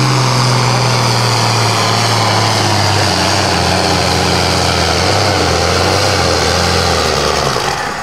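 Ford 9000 tractor's turbocharged six-cylinder diesel under full load pulling a weight-transfer sled, its engine note dropping steadily as the sled bogs it down. The engine sound falls away and gets quieter just before the end.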